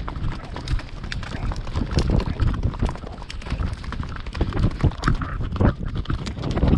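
Horse's hooves beating on grassland at a run: a quick, uneven patter of thuds, with wind rumbling on the microphone.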